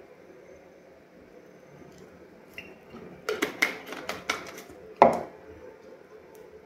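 A small amber glass bottle and its cap being handled: a quick run of light clicks and taps about three seconds in, then a single louder knock about five seconds in as the bottle is set down on a wooden table.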